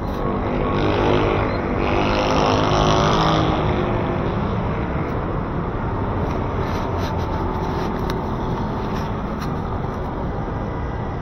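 City street traffic: vehicle engines running steadily, with one vehicle passing close and louder between about one and four seconds in.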